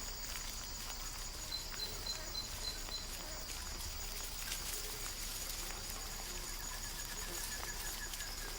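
Tropical forest ambience: a steady high-pitched insect drone, with a brief train of quick chirps about four a second near the start and a lower, longer chirp train near the end.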